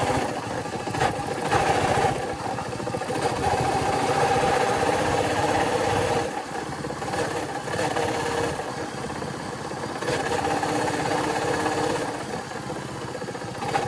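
Royal Enfield single-cylinder motorcycle engine running steadily with an abnormal noise, which the mechanic puts down to a worn engine bearing that needs replacing.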